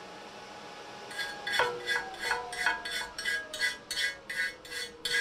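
AC TIG welding arc on a cast-aluminum oil pan as filler rod is laid into a crack. From about a second in it pulses in a steady rhythm of about three beats a second, with a ringing buzz under it. The aluminum is contaminated and welds with sputter.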